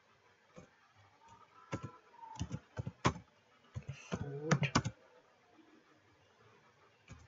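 Computer keyboard keystrokes typed in short, irregular runs, closest together about four and a half seconds in.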